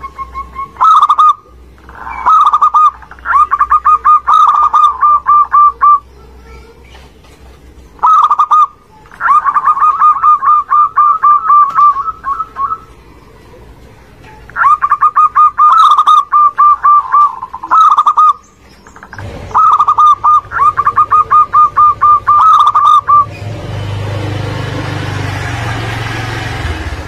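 Zebra dove (perkutut) singing: about five phrases, each an opening note followed by a quick run of short repeated coos, with brief pauses between them. About 23 seconds in the song stops and a steady rushing noise takes over.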